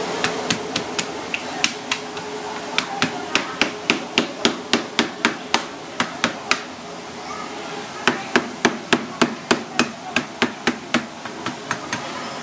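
Heavy meat cleaver chopping through the hard shell of cooked coconut crab on a plastic cutting board: sharp, rapid strikes at about four a second, in two runs with a short pause between them.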